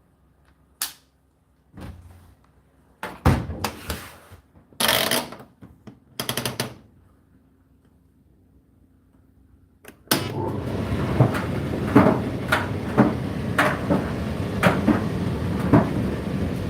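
A few separate clicks and knocks, then about ten seconds in the Indesit IDC8T3 condenser tumble dryer starts running: a steady drum-and-fan noise with the load thudding irregularly as the drum turns.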